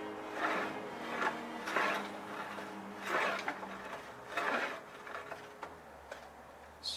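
Hand abrasive rubbed over a wooden plank in separate rasping strokes, about five of them, thinning out near the end: the wood being smoothed down by hand.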